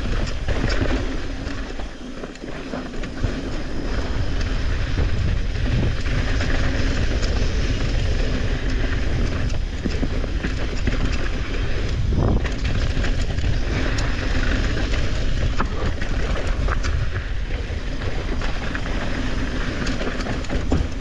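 Mountain bike descending a rough dirt trail: tyres rolling over dirt and rocks, with frequent clattering knocks from the bike and a steady wind rumble on the microphone.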